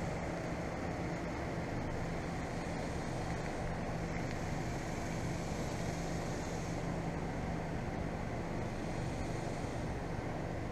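A steady low mechanical hum over an even background noise, unchanging throughout.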